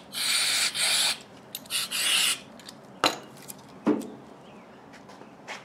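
Aerosol solvent can spraying in two hissing blasts of about a second each onto a spray-gun air cap. Two sharp knocks follow as the parts are set down on the bench.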